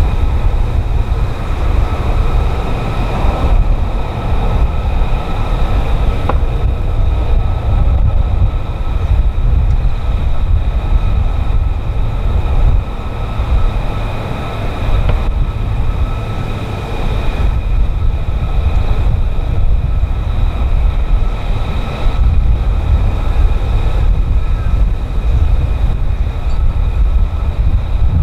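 F-35B jet engine running steadily: a deep rumble with a steady high whine over it.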